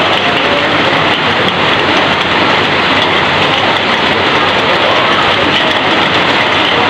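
Heavy rain falling and pouring off the edge of a corrugated roof: a loud, steady, dense hiss of water with no letup.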